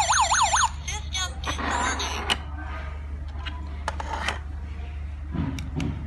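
Alarm host's built-in siren wailing in fast rising-and-falling sweeps, cutting off under a second in: the alarm has been triggered by the door contact. A few light clicks and handling of plastic and metal parts follow.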